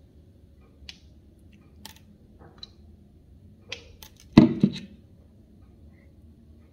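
Small clicks and soft knocks from handling a plastic lotion bottle. A louder double knock comes about four and a half seconds in.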